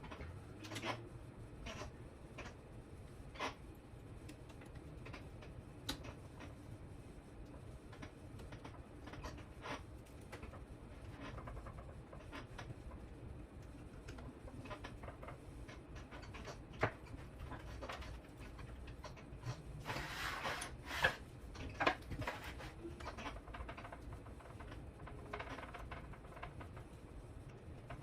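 Scattered small clicks, ticks and rustles of hands handling plastic connectors, cables and small parts, with a busier patch of handling noise about two-thirds of the way through.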